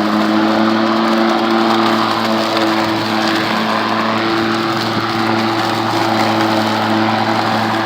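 Ego 20-inch battery-electric lawn mower running steadily at full blade speed, a level whine over the rush of air from the spinning blade, set up for mulching with the mulch plug fitted.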